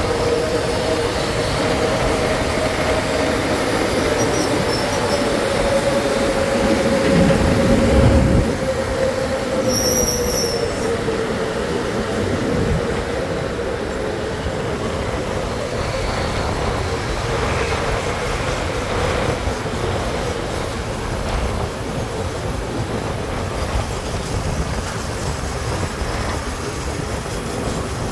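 Motorcycle running at road speed in city traffic: a steady engine and drivetrain whine that slowly falls in pitch over the first ten seconds, under a constant rush of wind and road noise. A deeper rumble swells briefly about seven seconds in.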